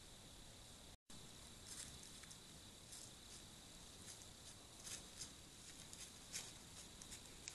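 Faint scattered crunches and taps of dry leaf litter under a white-tailed deer buck's hooves as it steps and noses about on the ground, over a steady faint hiss.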